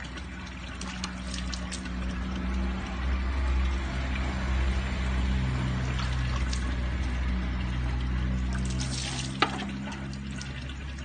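Water scooped from a plastic dipper and splashed over a cat being bathed, a steady trickling and splashing over a low steady hum, with one sharp click about nine seconds in.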